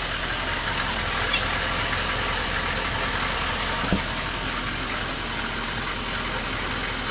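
An off-road vehicle's engine running steadily at idle, with a short thump about four seconds in.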